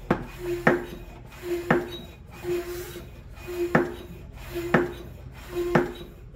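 Harbor Freight hand-pump fluid extractor being pumped about once a second, each stroke a short squeak followed by a click, drawing engine oil up through the dipstick tube.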